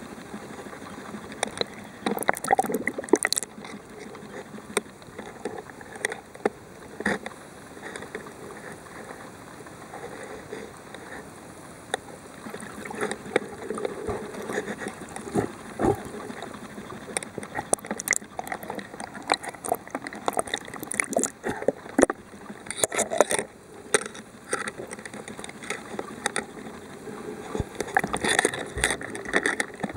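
Muffled underwater sound heard through a waterproof camera housing: a steady wash of moving water with many irregular clicks and knocks.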